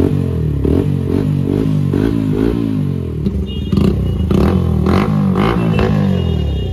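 125 cc motorcycle fitted with an Austin Racing aftermarket slip-on exhaust, revved in quick repeated throttle blips about two a second to show off the exhaust note.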